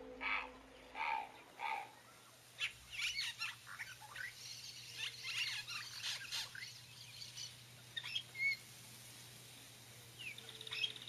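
Yellow-rumped caciques calling around their nesting colony: a few spaced notes, then a dense run of quick whistles and chattering calls, thinning out to scattered calls.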